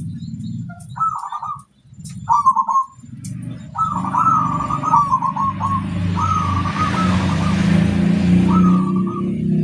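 Zebra dove cooing: rolling, trilled song phrases about a second in, again at about two and a half seconds, in a run from about four to six and a half seconds, and again near nine seconds. Underneath runs a steady low rumble, with faint high chirps.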